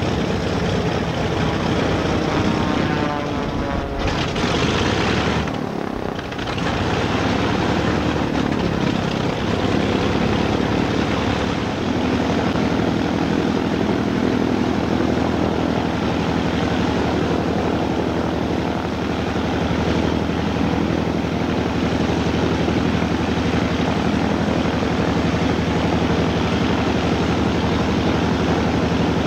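Douglas AD-4 Skyraider's Wright R-3350 eighteen-cylinder radial engine idling with the propeller turning: a steady, loud engine drone with a brief dip about six seconds in.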